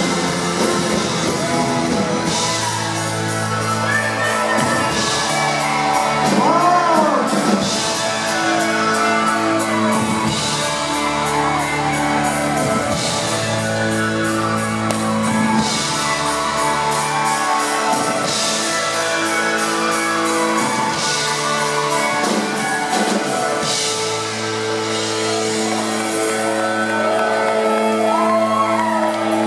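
Live rock band playing in a large hall: electric guitars, bass and drums, with singing and shouted vocals over them.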